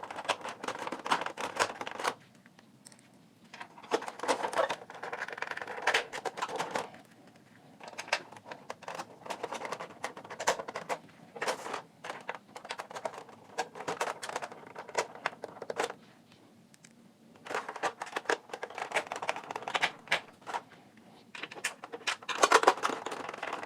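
Screws being driven by hand with a screwdriver into the plastic cabinet of a cassette player: spells of quick clicking and scratching as the screws turn, with a few short pauses between screws.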